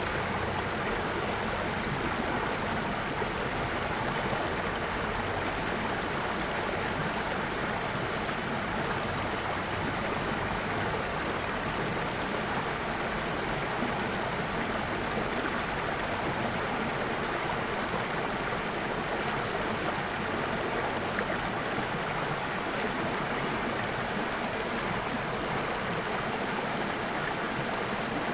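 Water flowing steadily, a continuous rushing of a stream.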